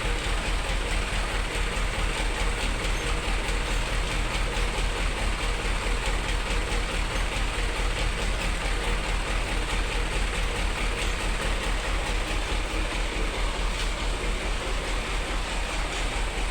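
Mitsubishi Canter truck's diesel engine idling steadily with an even, rhythmic pulse, run to test the freshly refitted transmission.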